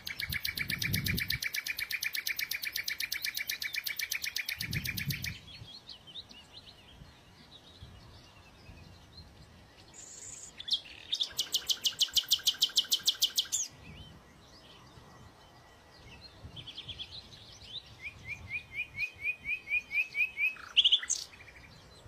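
Common nightingale singing. Its phrases are long, fast trills of rapidly repeated notes separated by pauses. Near the end comes a run of short rising whistles that grows louder.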